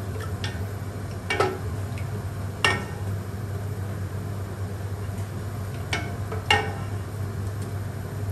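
Wooden spoon stirring in a stainless-steel stockpot, with a few sharp clinks and knocks of kitchenware, two early and two close together near the end, over a steady low hum.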